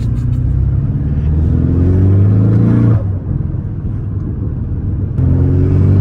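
Porsche 718 sports car's engine heard from inside the cabin while accelerating: the revs climb, drop abruptly about three seconds in, then the engine pulls loudly again about five seconds in, over road and tyre noise.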